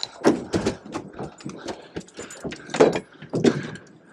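Irregular knocks and clatter as a landing net holding a freshly caught fish is lifted aboard and set down on a boat's deck, the net's frame and pole knocking against the hull and deck.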